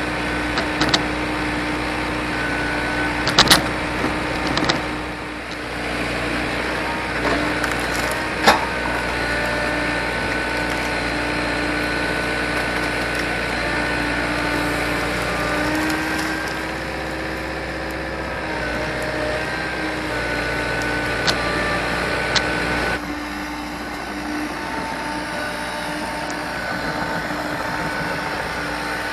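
Hydraulic excavator engine running steadily while the machine works, with several sharp cracks of wood snapping, a few seconds in, around eight seconds in and again past the twenty-second mark.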